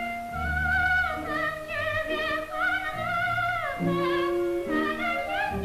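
Operatic soprano singing a high melody with wide vibrato over orchestral accompaniment; the melodic line dips about four seconds in and climbs again near the end.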